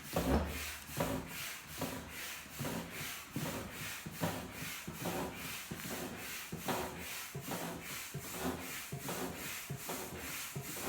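Double-action hand pump inflating an inflatable kayak/paddle board, a rasping rush of air on both the up and down stroke, about two strokes a second, in the early stage when the board is still nearly empty of air.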